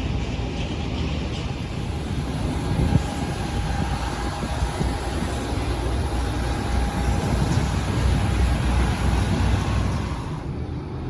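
Jet airliner engines running: a steady rumble with a faint high whine that drops away about ten and a half seconds in.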